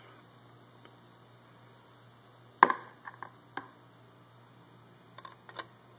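A handful of short, sharp clicks and light knocks from an oil-soaked clutch friction plate being handled and fitted into the Hyosung's clutch basket. The loudest is a single crisp click about two and a half seconds in, with a few quieter ones after it and two more near the end, over a low steady hum.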